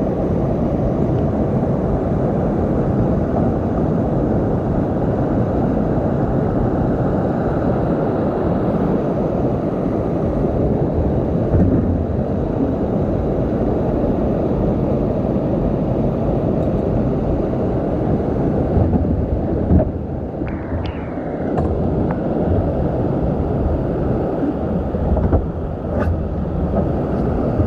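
Steady loud roar of rushing whitewater from a rapid close by. About two-thirds through and again near the end come a few short clicks and a brief squeak as the kayak's seat fittings are handled.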